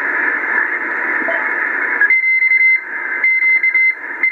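Cobra 148 GTL radio with a DDS VFO kit, receiving in LSB while being tuned across the 40 m band: steady receiver hiss, then about two seconds in a high whistling tone starts keying on and off, a Morse code (CW) signal.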